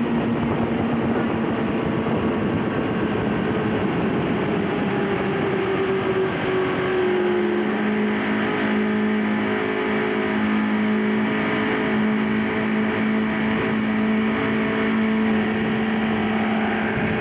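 Motorboat engine running steadily under load while towing a parasailer, with wind noise. Its note sinks slowly, then settles on a steady, slightly lower pitch about seven seconds in.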